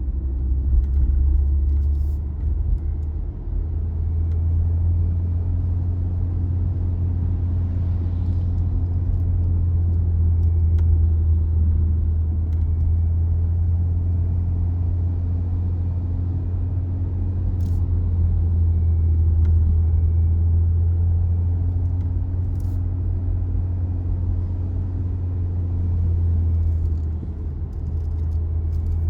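Car driving at a steady pace: a constant low rumble of engine and tyres on the road, with a few faint clicks.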